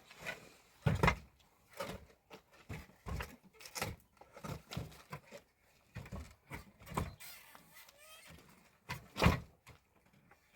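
A series of irregular knocks and thuds, the loudest about a second in and again near the end.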